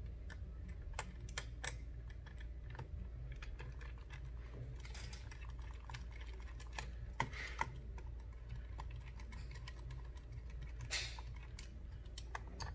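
Small scattered clicks and taps of a precision screwdriver and tiny screws on a metal SSD mounting bracket as the bracket is screwed to the drive's side, a few a little louder than the rest, over a steady low hum.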